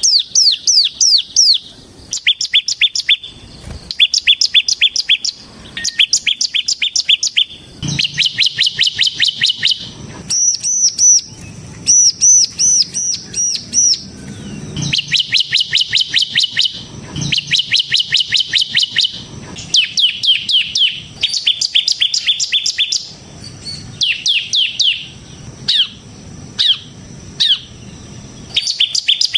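Ciblek semi (bar-winged prinia) singing its rapid rattling 'ngebren' song: fast phrases of sharp, falling chirps, several a second, each phrase lasting one to two seconds with short gaps between. Around the middle the song turns to higher, looping notes.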